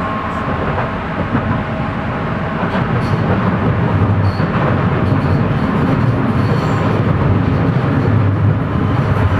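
Ganz-MÁVAG metro car of Budapest's M1 line running through the tunnel, heard from inside the car: a steady rumble of wheels and running gear on the rails that grows a little louder about four seconds in.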